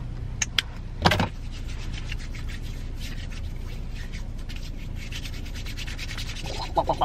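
Hands rubbing hand sanitizer gel together in a steady, dry rubbing. A few clicks from the sanitizer bottle near the start, the loudest about a second in.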